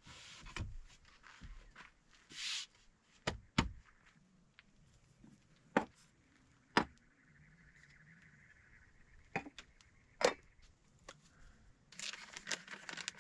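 Camping gear and coffee things being set out on a folding table: scattered single knocks and clacks as items are put down, with short rustles. Near the end, a packet crinkles as it is handled.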